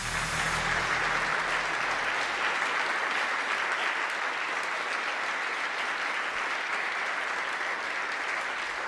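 Audience applause: a large crowd clapping steadily, starting abruptly and holding at an even level.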